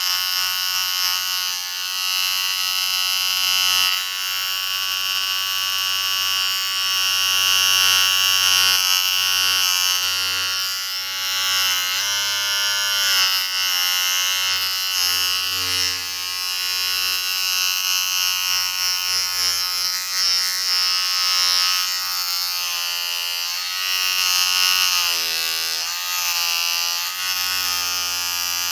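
Electric shaver buzzing steadily, its pitch dipping briefly about twelve seconds in and wavering again near the end.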